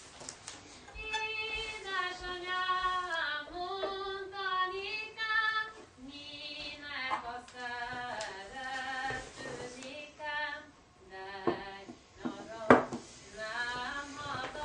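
A woman singing a folk melody unaccompanied, in short phrases with brief pauses between them. A single sharp click or knock cuts in about two-thirds of the way through.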